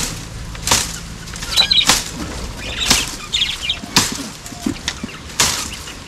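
Branches and creepers being torn off the top of a wall by hand, giving sharp rustling snaps about once a second, with lovebirds chirping in between.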